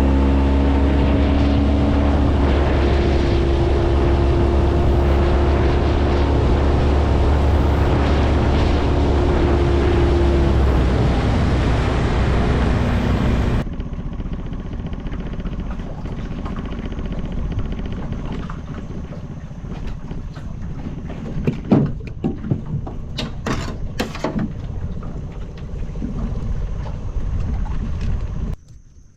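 Boat motor running under way, with wind buffeting the microphone. About halfway through it cuts to a quieter stretch of steady noise with a few sharp knocks. Near the end the sound drops away suddenly.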